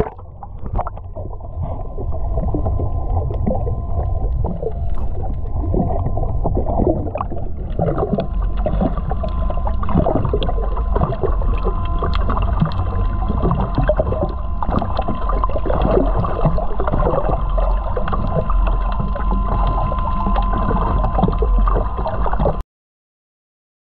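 Motorboat under way: a low engine drone under dense rushing-water noise with frequent knocks. A steady whine joins about seven seconds in, and the sound cuts off abruptly near the end.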